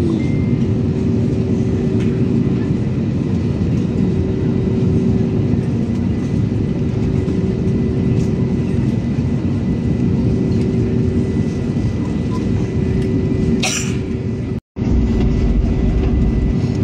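Airliner cabin noise while taxiing: the engines' steady hum over a low drone. Near the end a short rustle, then the sound drops out for a moment and comes back with a deeper rumble.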